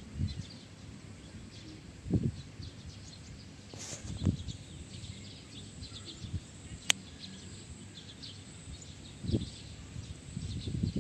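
Outdoor field ambience with faint, scattered bird chirps. A few low muffled thumps come and go, and a single sharp click sounds about seven seconds in.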